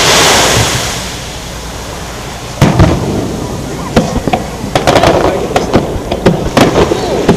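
Aerial firework shells bursting: a rushing hiss fades over the first second, then one loud bang about two and a half seconds in, followed from about four seconds on by a quick run of sharp cracks and pops.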